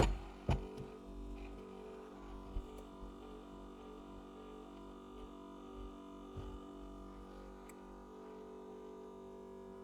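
Steady hum of a heat plate screen separator's vacuum pump running, with a few light clicks and taps.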